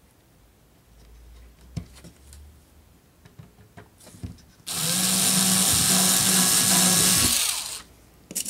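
Cordless drill spinning up and running for about three seconds, boring a small hole through a model railroad turnout's ties for a locator nail, then stopping. Light clicks and taps of handling before it, and a couple of sharp taps near the end.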